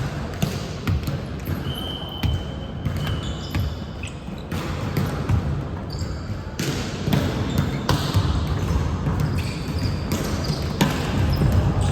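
Volleyball being played: repeated sharp hits and bounces of the ball, over a busy background of voices.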